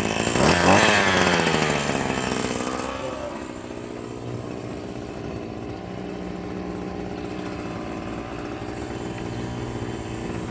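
Hyper Tough gas string trimmer's small two-stroke engine running after a cold start: it revs up sharply about half a second in, winds back down over the next couple of seconds and settles to a steady idle.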